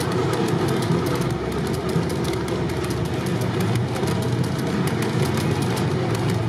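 G-scale model freight cars rolling past on garden-railroad track: a steady low rolling rumble with a fast, even run of wheel clicks over the rail joints.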